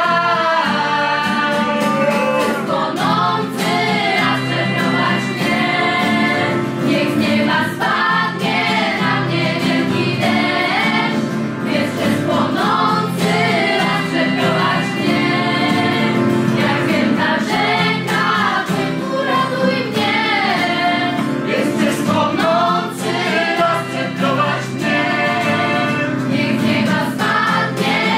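A group of mostly female voices singing together in harmony, accompanied by strummed acoustic guitars.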